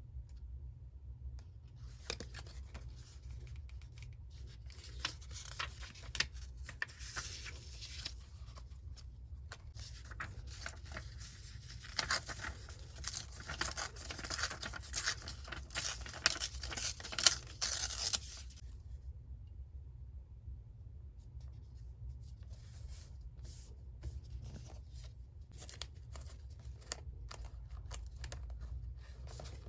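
Paper being torn by hand, a long run of tearing strokes from about two seconds in, loudest toward its end, stopping about two-thirds of the way through; after that only scattered light paper taps and rustles. A steady low hum lies underneath.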